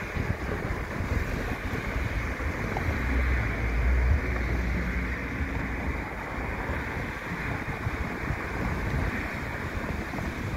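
Wind buffeting the microphone over the steady low rumble of a slow freight train rolling away, with a stronger gust about three to four seconds in.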